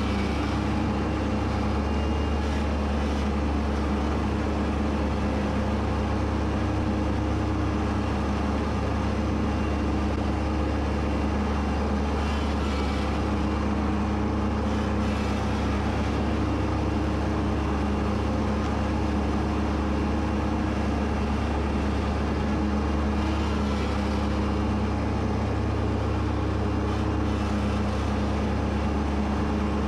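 Kubota B2601 compact tractor's three-cylinder diesel running steadily under load while its mower deck cuts tall, wet grass.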